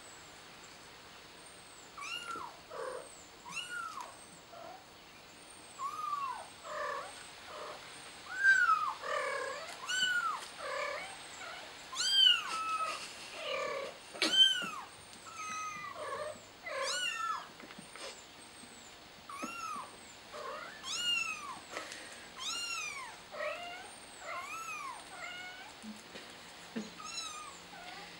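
Young kitten mewing over and over in high, arched calls, one after another from about two seconds in, loudest in the middle: a frightened kitten calling for its mother.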